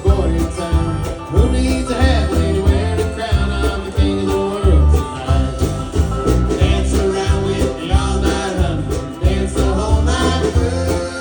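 Upbeat country-style song in an instrumental stretch between sung lines, with a steady bass beat.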